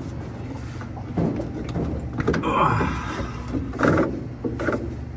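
Hand tools working the drive pulley nut off a Maytag Bravos washer: a few metal clicks and knocks and a short scrape, over a steady low hum.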